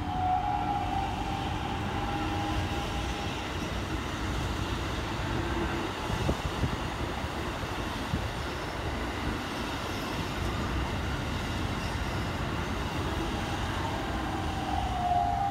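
Keikyu 2100-series eight-car electric train running past close by: a steady rumble of wheels on rail, with a whine in the first seconds and again near the end.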